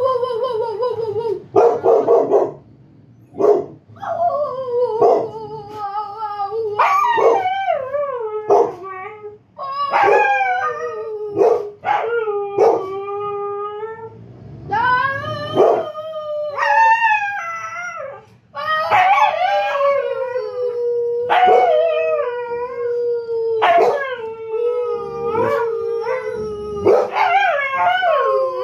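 Siberian husky howling: a run of long drawn-out howls, the earlier ones wavering and falling in pitch, a later one held nearly level for several seconds, with short sharp yips scattered between them.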